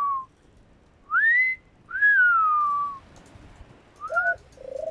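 A two-part wolf whistle, one glide sliding up and then one sliding down, given once about a second in. Near the end comes a short rising whistle and a low steady note.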